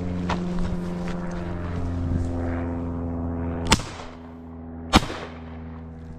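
A shotgun fired twice at a flushed bird, about a second and a quarter apart, the second shot louder. Under it runs a steady engine-like hum that fades after the first shot.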